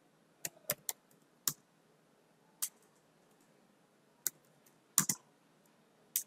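Computer keyboard keys being typed: about nine separate keystrokes, irregular and slow, with gaps of up to a second and a half between them.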